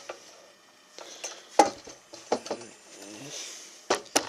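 Objects being handled and set down: a series of sharp knocks and light clinks, the loudest about a second and a half in and two close together near the end.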